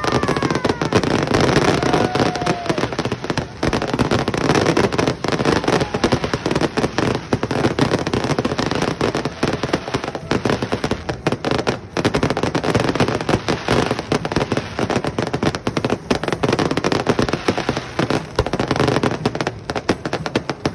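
Fireworks display at full tilt: a dense, unbroken barrage of crackling, popping and bangs from many shells and crackle effects bursting at once.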